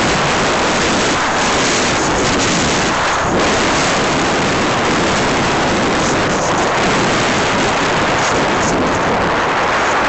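Small aircraft in flight: a loud, steady rush of wind over the microphone mixed with the aircraft's engine running.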